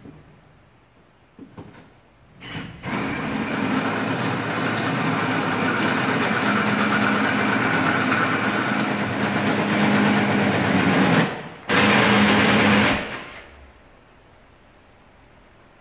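Cordless drill driving a small hole saw, lubricated with chain oil, through the van's metal floor: a steady grinding run of about eight seconds, a brief pause, then another second of cutting before it stops.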